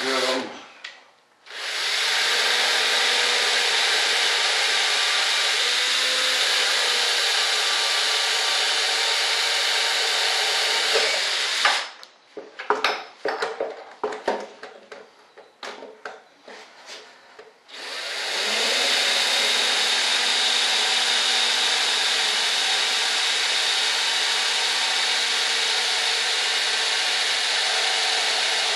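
Handheld power drill boring bolt holes through a resin composite mold, running steadily in two long stretches of about ten seconds each. Between the stretches, a few seconds of knocks and clatter.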